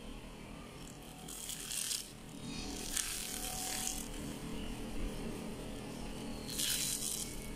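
Crispy lachha paratha, a flaky layered flatbread, crackling and rustling as hands crush and pull it apart, in three short bursts over a faint steady background hum.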